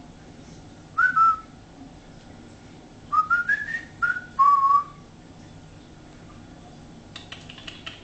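Cockatiel whistling: a short note about a second in, then a quick run of notes stepping upward, followed by two longer notes, the last one lower. A few faint clicks near the end.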